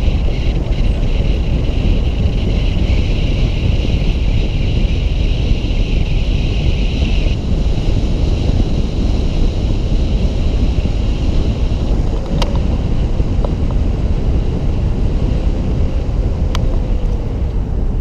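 Steady wind rush on the microphone over the low road rumble of a car driving along. A high steady hiss stops about seven seconds in, and there are two faint clicks later on.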